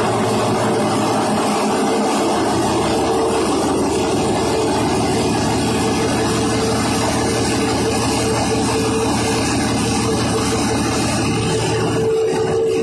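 Steady, loud din of a ship's engine room: a large marine diesel engine running at constant speed, with a steady hum over a low drone.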